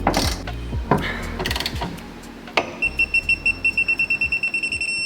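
A wrench ratchets with sharp clicks as a suspension bolt is tightened. About two and a half seconds in, a digital torque wrench starts beeping rapidly, about six high beeps a second, the signal that the 125 N·m target torque has been reached.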